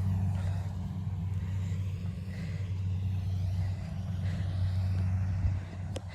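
Engine of a rice combine harvester running with a steady low drone, with a single sharp click near the end.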